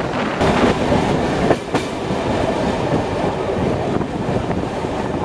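Diesel-hauled passenger train running, heard from an open carriage window: a steady rush of wheel and rail noise with some clatter from the wheels on the track.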